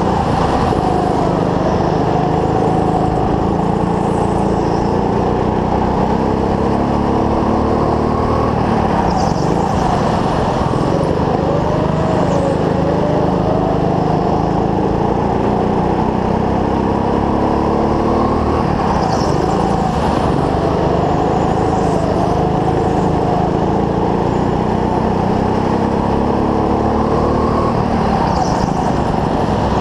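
Go-kart engine running hard, heard from onboard, its pitch climbing and dropping again in a pattern that repeats about every ten seconds as the kart laps the track.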